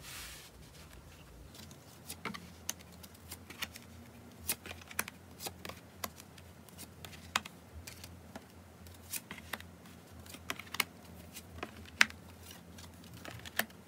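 Tarot cards being dealt and laid down one by one on a cloth-covered table: irregular light clicks and taps of card stock, the sharpest about twelve seconds in.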